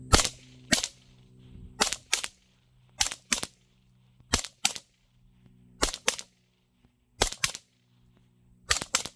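Suppressed 9mm shots from two integrally suppressed MP5 SD-style carbines (Ralph Smith RDTS conversions) firing Magtech 115-grain rounds, in quick pairs about every second and a half, seven pairs in all. Each shot is a short sharp crack.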